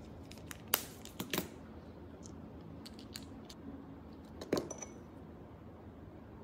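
A few light clicks and taps of small hard objects being handled, one near the middle with a brief high ringing clink, over a steady low hum.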